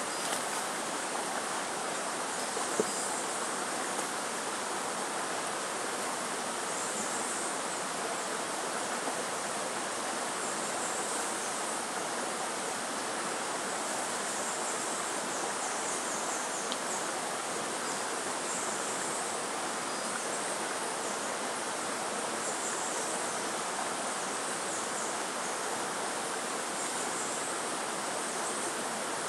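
Steady, even rushing noise of outdoor ambience, with faint high insect calls recurring every few seconds and a single sharp click about three seconds in.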